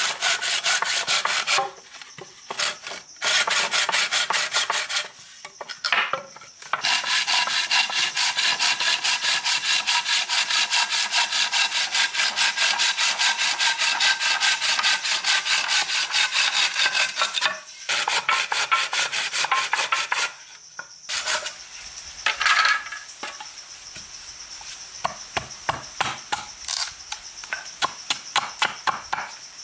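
A handsaw cutting through dry wooden poles in fast back-and-forth strokes, with several short pauses, until about 21 seconds in. After that, lighter scattered knocks on wood and the steady high buzz of insects.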